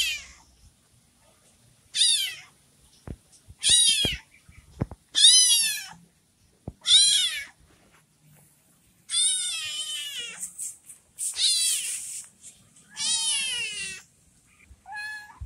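Young kitten meowing over and over, high-pitched rising-and-falling calls about every one and a half to two seconds, the later ones longer and sliding lower at their ends. These are the cries of a kitten left alone by its mother.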